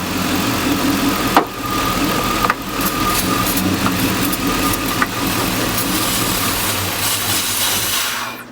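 LS V8 engine in a box Chevy Caprice running steadily, with a few sharp clicks; the engine is being chased for a misfire. The sound cuts off suddenly near the end.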